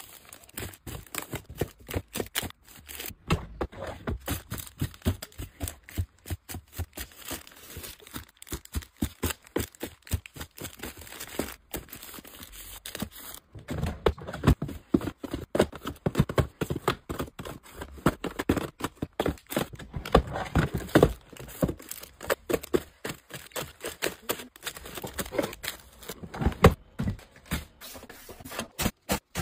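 Close-up restocking sounds: plastic-wrapped packs of wipes crinkling and knocking softly as they are handled and stacked in a plastic drawer, with a run of small clicks and taps. Louder knocks and a drawer sliding come in about halfway through.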